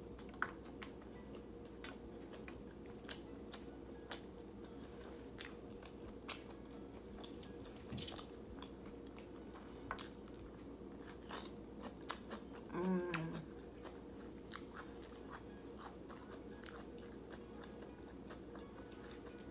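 Close-miked chewing and biting of a vegan sausage taco, with many small sharp mouth clicks over a faint steady hum. About thirteen seconds in comes a short vocal sound with a wavering pitch.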